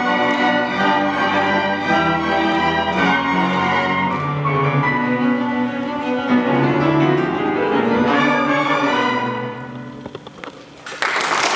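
An orchestra of violins, cellos, brass and piano playing its closing chords, which die away about ten seconds in. Applause breaks out just before the end.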